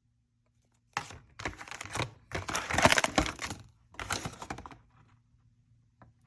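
Close, rapid clicking and crackling handling noises in several bursts between about one and five seconds in, loudest around the middle.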